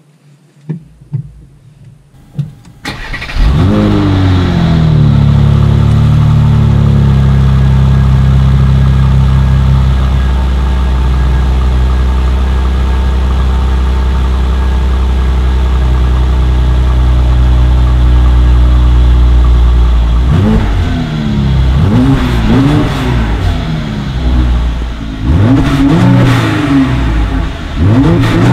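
Mercedes E400 Coupe's 3.0-litre twin-turbo V6 starting from cold. After a few faint clicks it cranks briefly and catches about three seconds in, flares, then settles into a steady fast cold idle around 1,000 rpm. From about twenty seconds in it is revved in a series of short throttle blips.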